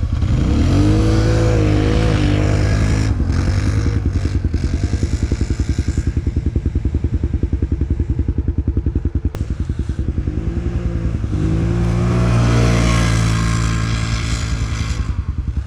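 ATV (four-wheeler) engine running under the rider, pitch rising as it revs up soon after the start and again near the end, steadier in between. It has a stock exhaust that the riders call very quiet and say needs an aftermarket exhaust.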